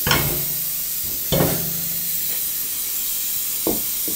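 Steady hiss of propane gas escaping from the vent valve of a small refillable propane bottle as liquid propane is decanted into it from a large bottle through a hose: the escaping gas makes room for the liquid. Two clunks with a brief low ring come about a second apart near the start, with lighter taps near the end.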